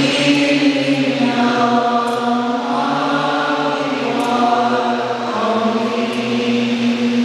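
Slow, chant-like singing by several voices, each note held long before the next.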